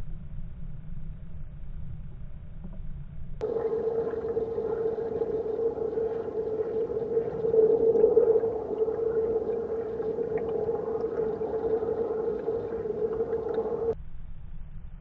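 Underwater recording in a fast-flowing river: a low rumble, interrupted from about three seconds in until near the end by a loud steady hum with hiss that starts and stops abruptly.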